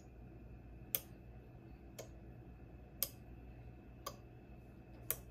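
Relays on a multi-channel relay board clicking about once a second as they switch the solenoid outputs, here driving green indicator lamps, on and off in turn; stronger and weaker clicks alternate.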